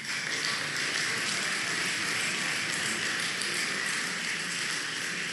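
Audience applauding steadily, breaking out suddenly and holding an even level throughout.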